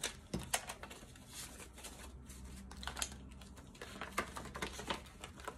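Paper banknotes rustling and flicking in a run of short, irregular rustles as a stack of cash is handled and slid into a clear plastic pocket of a cash-envelope binder.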